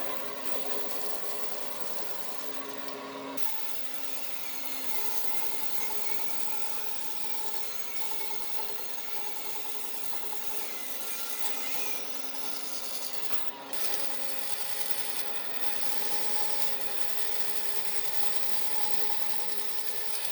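Electric power tool running while working wood, a dense rasping noise over a steady motor hum, with abrupt changes in tone a few times.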